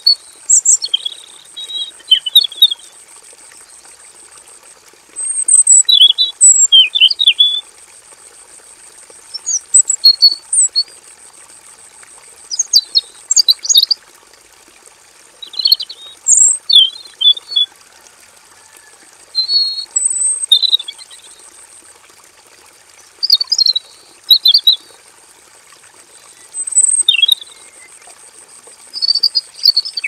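Red-billed leiothrix (Pekin robin) singing: short bursts of quick, varied chirping phrases, one every two to four seconds.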